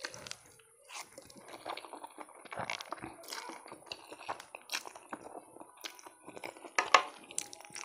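Close-up slurping and chewing of saucy noodles: irregular wet smacks, squelches and small clicks, with one sharper click about seven seconds in.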